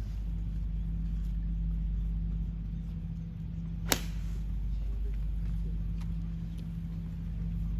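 A golf club striking a golf ball once, a single sharp crack about four seconds in, over a steady low hum.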